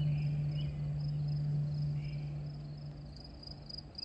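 A steady low hum that cuts off near the end, with a high chirp repeating about three times a second behind it.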